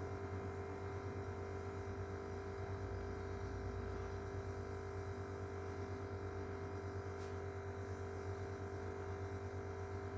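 A steady hum with one constant mid-pitched tone and a lower drone, unchanging throughout.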